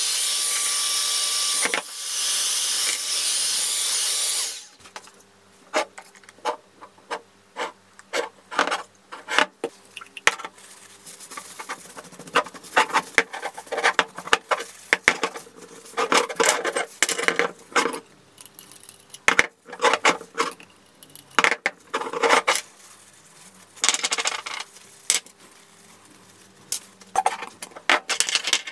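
A Parkside heat gun blows hot air with a steady hiss for about four and a half seconds, drying a rust-cleaned steel hand vise, then switches off. After that a rag rubs oil onto the vise, with scattered clicks and knocks as its small metal parts are handled on a wooden bench.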